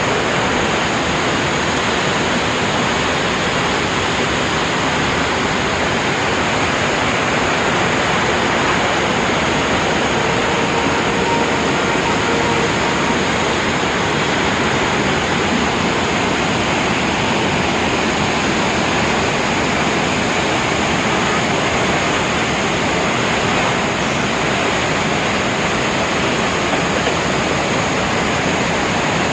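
Large four-tiered waterfall's water falling in a loud, steady rush.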